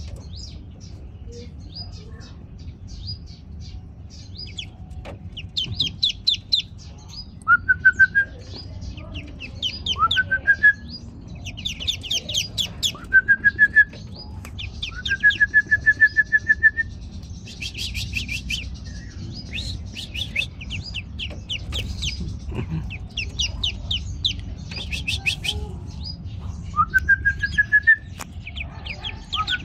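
A brood of newly hatched ducklings peeping: fast runs of short, high peeps in bursts every second or two. Among them, a lower whistled note that slides up and then holds for about a second repeats about six times.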